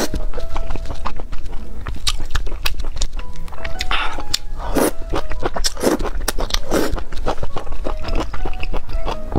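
Background music with short, evenly held notes over close-miked chewing: a woman chewing mouthfuls of thick noodles in spicy sauce, with many small mouth clicks and a soft chewing noise about once a second.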